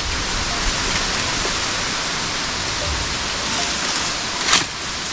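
Steady hiss of rain falling on forest foliage and leaf litter, with one sharp click about four and a half seconds in.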